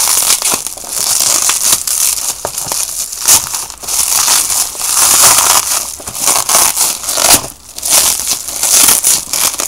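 Plastic bubble wrap being crinkled and pulled off a cube box by hand: a continuous loud crackling, with a brief lull about three quarters of the way through.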